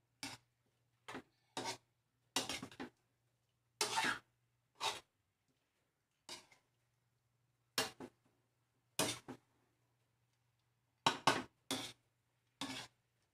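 Metal spatula scraping and knocking against a wok while stir-frying bitter gourd and egg: about a dozen short, irregular strokes with pauses between them.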